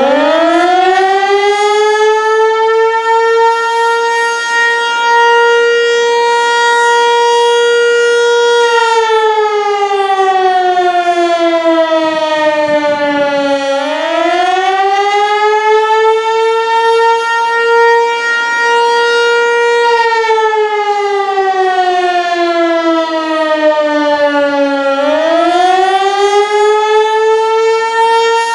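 ASC T-121 single-tone rotating outdoor warning siren starting up and wailing: it winds up to a steady tone, holds it, slides down over about five seconds and winds back up, twice. This rising-and-falling wail is the Attack signal.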